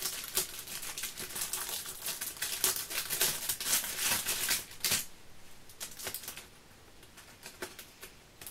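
Sheets of card stock being rummaged through and leafed over by hand: a dense run of crisp paper rustles and clicks for about five seconds, then only a few scattered ones.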